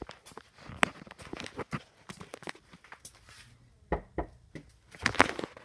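Irregular knocks, clicks and rustling from the camera being handled and carried while its holder moves about, with a few louder thumps about four seconds in and again near the end.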